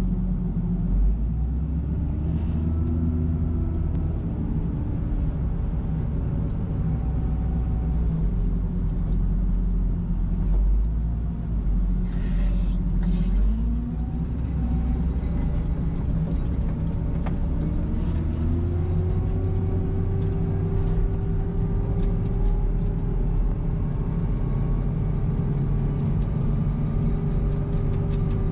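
Case 721E wheel loader's diesel engine running under load as it pushes snow with a Metal-Pless plow, its pitch rising and falling with the revs. A short hiss about twelve seconds in.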